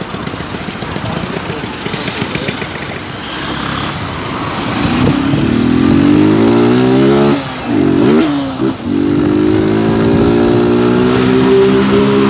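Honda CG Start motorcycle's single-cylinder four-stroke engine, running with its air filter removed, in a tunnel. It revs up hard about five seconds in, drops off the throttle briefly twice near the middle, then pulls on steadily with its pitch slowly rising.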